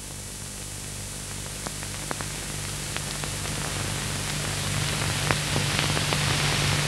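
Steady hiss and low hum of an old film soundtrack, with scattered faint clicks, growing gradually louder.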